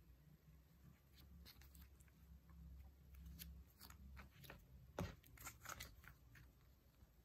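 Polymer banknotes and clear plastic sleeves being handled: faint crinkling with scattered clicks, the loudest a sharp click about five seconds in.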